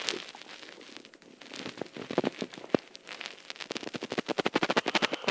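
Plastic packaging and small plastic model parts being handled: a run of crackling clicks that grows denser and louder in the last couple of seconds.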